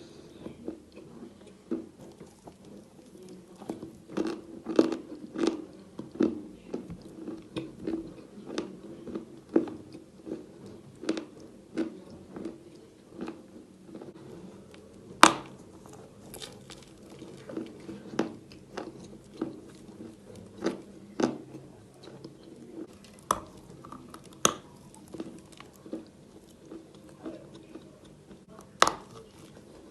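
Close-miked crunching and chewing of chalk: a run of sharp, irregular cracks as pieces are bitten and ground between the teeth, the loudest crack about halfway through.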